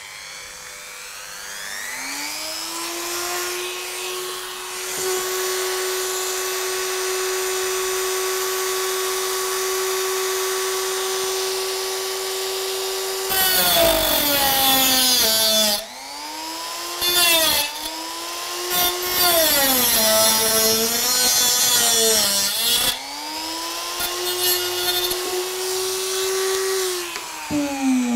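Rotary tool with a cut-off disc spins up about two seconds in and runs freely at a steady whine. From about halfway it grinds through model railway rail in several loud, gritty stretches, its pitch dipping under load each time. It then runs free again and winds down at the very end.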